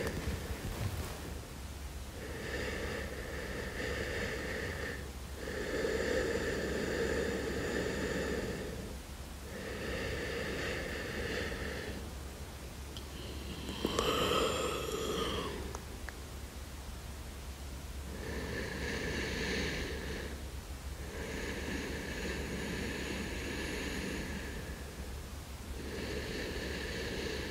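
A person breathing slowly and audibly as if asleep, close to the microphone: about seven long breaths, a second or so apart, with one shorter, different breath sound about halfway through. A steady low hum runs underneath.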